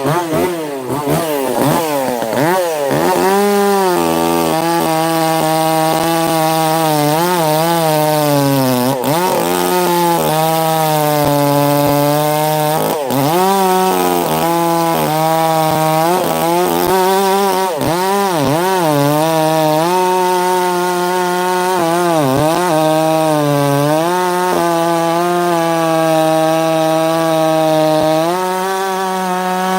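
Echo CS-590 two-stroke chainsaw at full throttle cutting through a large cherry log. The engine pitch sags and recovers over and over as the chain loads up in the wood.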